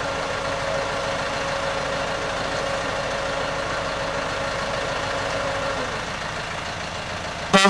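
Diesel engine of a narrow-gauge locomotive idling steadily. Its steady note drops back a little about six seconds in, and a short, loud burst comes just before the end.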